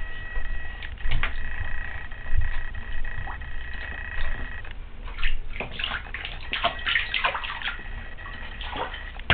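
Bath water splashing and sloshing as a baby in a bath seat moves and slaps at it, with a quick run of splashes in the second half.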